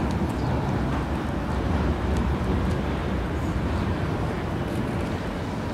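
Tram approaching slowly along street track: a steady low rumble, mixed with wind on the microphone and a few faint ticks.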